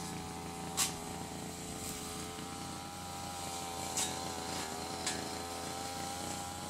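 A motor running steadily with a droning hum whose pitch wavers slightly, with a few faint clicks.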